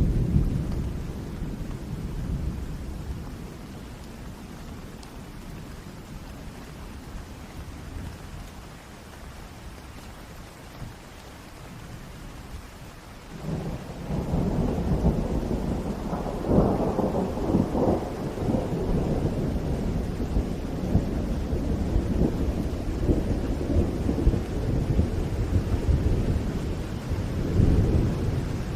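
Steady rain with thunder: a low rumble dies away over the first few seconds, then a louder roll of thunder breaks in about halfway through and rumbles on, swelling twice, to the end.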